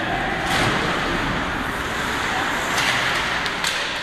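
Ice hockey play in an arena: the steady scraping hiss of skates on the ice, broken by several sharp clacks of sticks and puck, about half a second in and again near the end.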